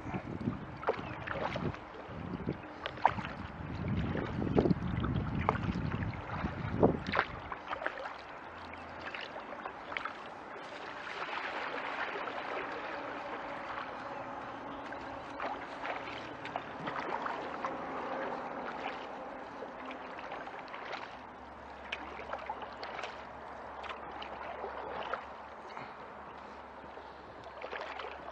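Kayak paddling: paddle blades dipping and splashing with water dripping, scattered with small knocks. A low rumble runs through the first several seconds.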